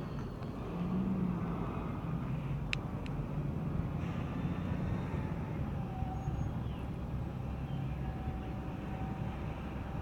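Steady low engine hum over a background rush, with two sharp clicks about three seconds in and a faint held tone in the second half.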